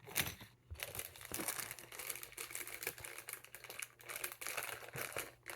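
Plastic packaging crinkling and crackling continuously as a small minifigure bag is handled and torn open, with small clicks of plastic parts.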